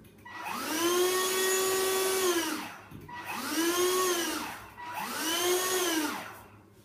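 Handheld vacuum cleaner switched on and off three times in quick succession. Its motor whine rises in pitch as it spins up and falls away as it stops each time. The first run lasts about two seconds, the other two are shorter.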